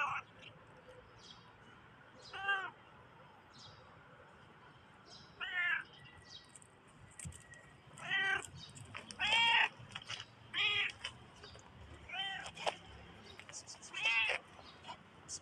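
A cat meowing repeatedly: about eight short meows, a few seconds apart at first, then coming more often in the second half.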